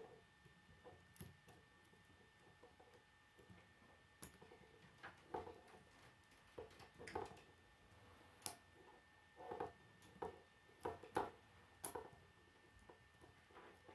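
K'nex plastic rods and connectors clicking and rattling as they are handled and snapped together: faint, irregular small clicks, coming more often in the second half.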